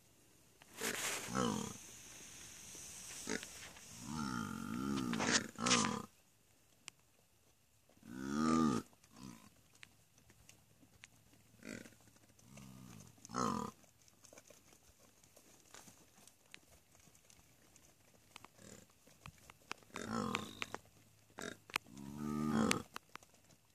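Scimitar-horned oryx calling: a series of separate, drawn-out, pitched calls ('orking'), each up to about a second long, in bouts with quiet gaps between them. The longest and loudest come about four to six seconds in and about eight and a half seconds in.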